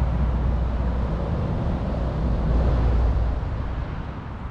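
Low rumble of wind buffeting the microphone outdoors, swelling about two and a half seconds in and easing off near the end.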